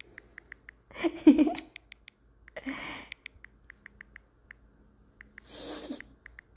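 Light clicks of a phone's on-screen keyboard as a word is typed, coming at an uneven pace. Three short breath sounds close to the microphone are mixed in, the loudest about a second in.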